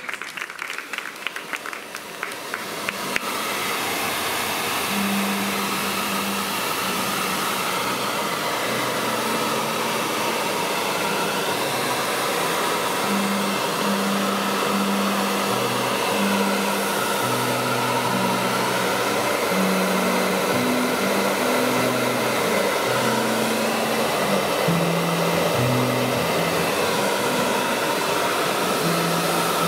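A hair dryer comes on about three seconds in and blows steadily, drying the wet watercolour paint. Music with a stepping bass line plays along, and scattered clapping is heard before the dryer starts.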